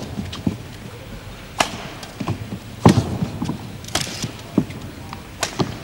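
Badminton rally: rackets striking the shuttlecock in about four sharp hits, roughly one every second and a quarter, with lighter knocks between them.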